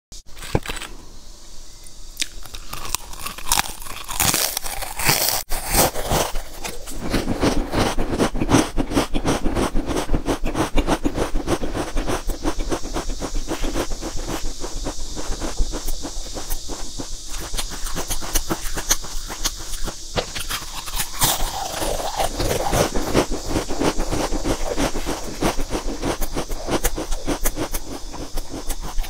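Potato chips being bitten and chewed: a dense run of crisp crunching cracks that goes on throughout.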